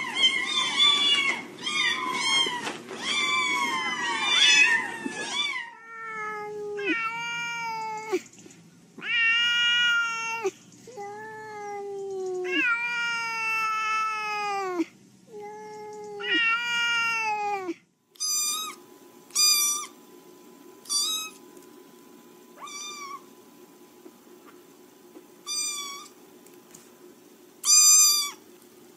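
Cats meowing: first a litter of kittens mewing over one another, then one cat giving a string of long, drawn-out meows that fall in pitch at the end, then a small kitten giving short, high-pitched mews over a faint steady hum.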